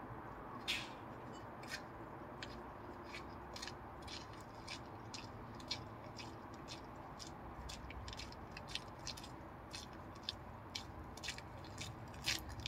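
Footsteps crunching on wet gravel, a steady walking pace of short sharp crunches that grow louder near the end as the walker comes closer.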